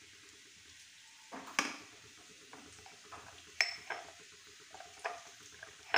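A metal spoon clinking lightly about five times while salt is spooned and sprinkled over raw fish pieces, two of the clinks ringing briefly.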